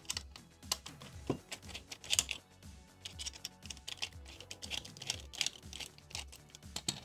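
A precision screwdriver and the plastic head housing of a cordless LED work light being worked by hand: an irregular run of light clicks and ticks as screws are turned and parts shift. Quiet background instrumental music plays underneath.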